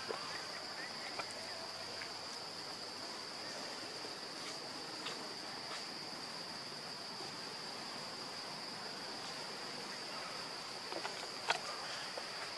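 Steady high-pitched drone of insects, one unbroken tone, over a faint forest hiss. A few faint clicks are scattered through it, with one sharper click near the end.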